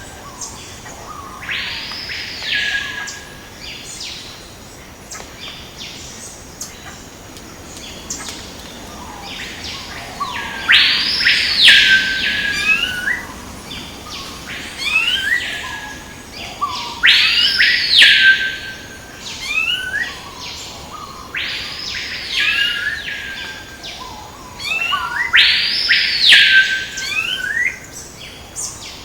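A bird calling repeatedly in tropical forest: loud whistled notes that sweep up and fall back in an arch, about five times, with short chirps between them.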